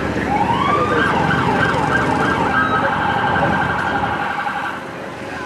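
Emergency vehicle siren: two rising wails, then a fast warbling yelp that stops near the end.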